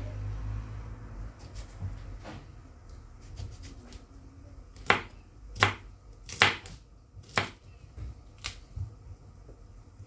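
Kitchen knife slicing fresh okra pods into rounds on a cutting board: sharp knocks of the blade striking the board. They come faint and scattered at first, then louder, about once a second, from about five seconds in.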